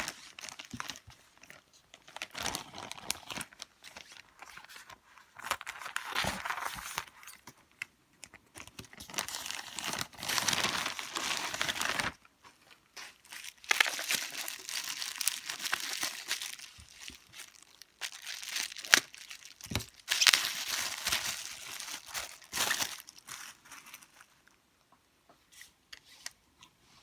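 A parcel's packaging being torn open and crinkled by hand, in irregular bursts of rustling with a few sharp clicks, pausing briefly about halfway and dying down near the end.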